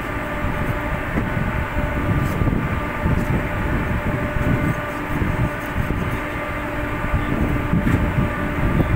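Steady low rumble and hum of a ship's onboard machinery.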